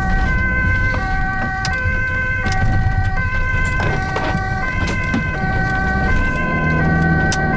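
Ambulance two-tone siren alternating between a high and a low note about every three-quarters of a second, over the vehicle's engine and road noise.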